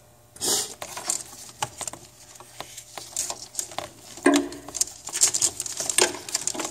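Hands working an engine-bay wiring harness and its plastic plug connectors: irregular clicks, taps and rustling, with a louder rustle about half a second in and again from about four seconds on.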